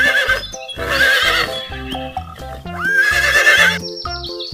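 Horse whinnying three times: the first call is already sounding at the start, the next comes about a second in, and the last about three seconds in. Background children's music with a steady beat plays throughout.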